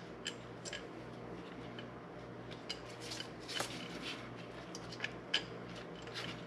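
Scattered light metallic clicks and clinks of bolts and small metal hardware being picked up and handled, over a steady low hum.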